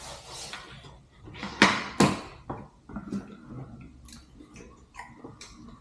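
Handling sounds at a dining table while eating: two sharp knocks or clinks about a second and a half in, then lighter clicks and taps, from a fork on a plate and a phone set down on the wooden tabletop.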